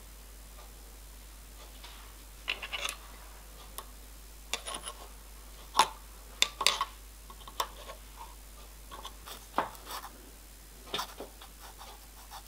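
Irregular light metallic clicks and taps as a spanner and small steel parts are handled while setting up a spin indexer on a milling machine, the sharpest about six seconds in.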